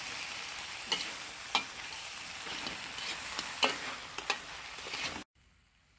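Food sizzling in a hot pan while being stirred, with a utensil knocking against the pan several times. The sound cuts off suddenly about five seconds in.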